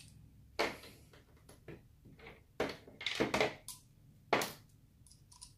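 Small clicks and knocks of a precision screwdriver's interchangeable metal bits and plastic handle being handled as the spare bits are stowed in the handle, a handful of separate sharp clicks, the loudest about four seconds in.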